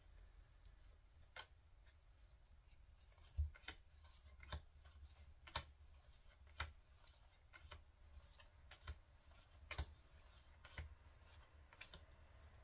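Faint irregular clicks and snaps of Pokémon trading cards being flipped through one at a time from an opened booster pack, roughly one a second, over a low hum.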